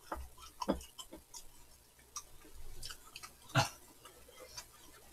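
Close-up eating sounds: noodles and soup being slurped and chewed, with scattered light clicks of chopsticks and spoons on bowls. A sharper knock comes about three and a half seconds in.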